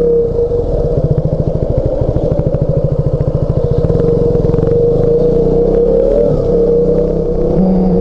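KTM 200 Duke's single-cylinder four-stroke engine thumping at low revs as the bike rolls slowly, its individual firing pulses plain for the first few seconds. It then settles into a steady run, with a brief rise in revs about six seconds in.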